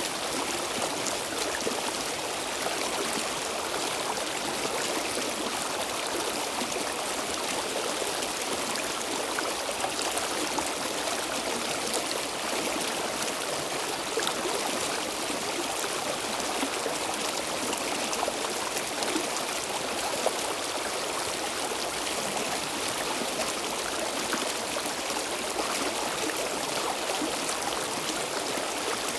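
Stream water flowing steadily over stones, a continuous rushing with fine splashes and trickles.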